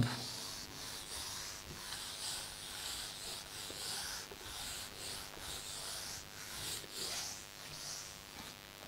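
Handheld eraser wiping a whiteboard: soft, hissing back-and-forth strokes about twice a second, stopping shortly before the end.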